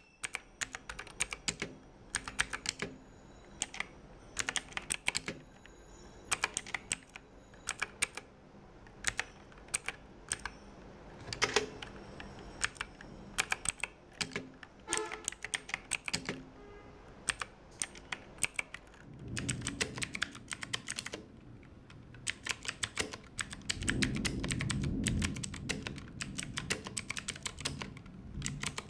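Mechanical keyboard with clicky blue switches being typed on: runs of fast, sharp key clicks with short pauses. A low rumble sits under the typing twice in the second half.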